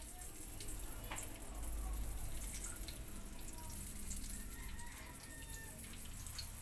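Cooking oil pouring in a thin stream from a plastic jar into a wok already holding a pool of oil: a steady liquid trickle. The oil is not yet hot enough to sizzle.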